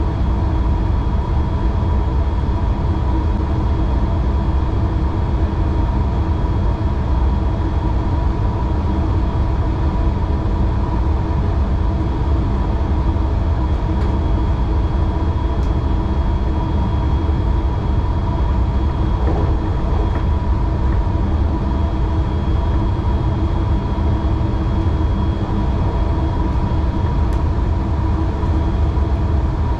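DB class 442 (Bombardier Talent 2) electric multiple unit running at steady speed, heard from the driver's cab. There is a constant low rumble of the train on the rails, with a few steady whining tones held level, and a couple of faint ticks.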